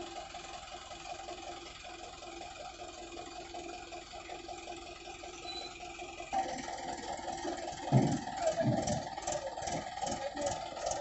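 JCB 3DX backhoe loader's diesel engine running steadily. About six seconds in it turns suddenly louder, with a couple of low thumps soon after.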